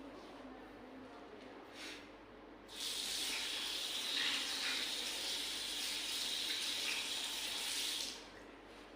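Water running from a sink tap for about five seconds, starting about three seconds in and stopping near the end, as hands are rinsed under it during handwashing.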